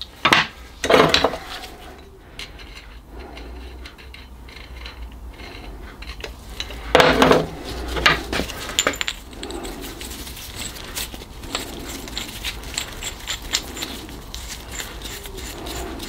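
Metal parts of a steam boiler clack valve clinking and clattering as they are handled by hand at a bench vise: a few loud clatters near the start and again around the middle, then many small light clicks.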